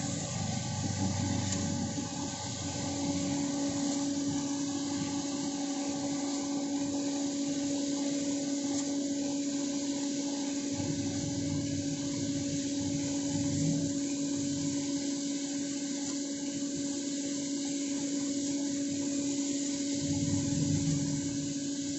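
Coffee roasting machine running: a steady motor hum over an even whooshing airflow, with low rumbling swells now and then.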